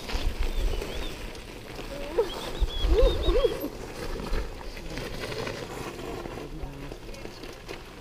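Mountain bike riding with rumbling wind and trail bumps on the helmet or bike camera. About two seconds in comes a short wavering call that rises and falls a few times.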